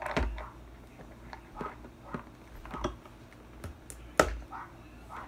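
Cardboard toy box being handled and worked open by hand: a string of small scattered clicks and taps, with one sharper knock just after four seconds in.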